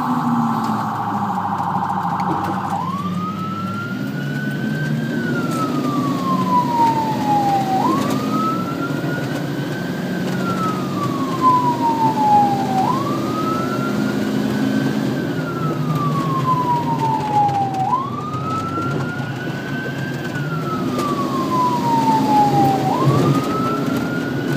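Electronic emergency siren heard from inside the cab of the responding fire department vehicle: a fast yelp that switches about three seconds in to a slow wail, rising and falling about every five seconds. Engine and road noise run underneath.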